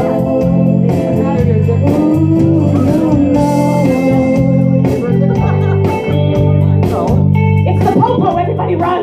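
A woman singing into a microphone over a loud backing track of electric guitar, bass and drums, heard through a bar's sound system.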